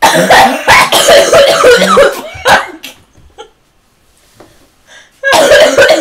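A person in a hard coughing fit: a run of harsh coughs lasting nearly three seconds, a pause, then another bout about five seconds in. The uploader puts the cough down to bronchitis.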